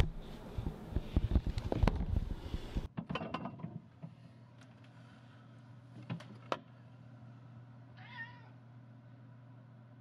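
A cat meows briefly twice, once just after three seconds in and again about eight seconds in, over a low steady hum. The first three seconds hold loud low thumps and rumbling.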